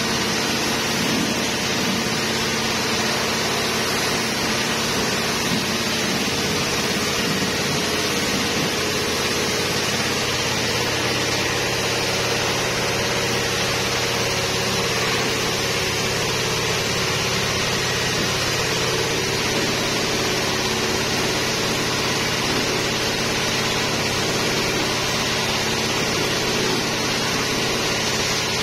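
Motor-driven pressure sprayer running steadily, a constant machine drone under the hiss of the spray jet from the lance.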